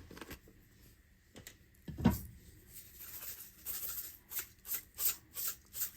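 Dried minced onion being shaken out of a spice jar over a pot of chili: one low knock about two seconds in, then a run of short, rhythmic rattling shakes, about two to three a second, through the second half.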